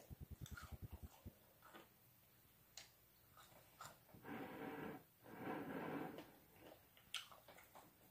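Faint eating sounds while fried chicken is pulled apart by hand and chewed: a brief low flutter at the start, a few small clicks, and two soft breathy noises about a second long in the middle.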